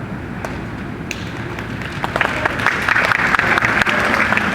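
Audience of students applauding: a few scattered claps at first, swelling into steady, louder applause about two seconds in.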